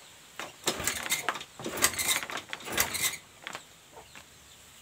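Honda Vario 110 scooter being kick-started with its battery disconnected: about two seconds of kickstarter clatter as the engine turns over without firing. It won't start because the regulator-rectifier connector has come loose, leaving no charging current.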